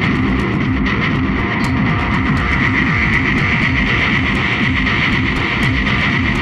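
Background rock music led by guitar, with a steady beat.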